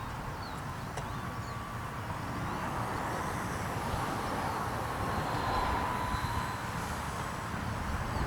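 Small RC plane's electric brushless outrunner motor and propeller whining thinly in flight, the pitch drifting a little as it passes, over low rumbling wind on the microphone.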